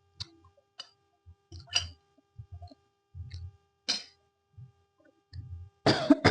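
A person eating spicy fried noodles close to the microphone: chewing, with short wet mouth clicks and smacks every second or so, and one louder, longer burst near the end.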